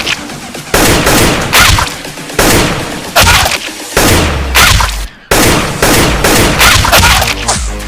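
Gunfire sound effects: repeated loud bursts of rapid shots with low booms, broken off briefly about five seconds in.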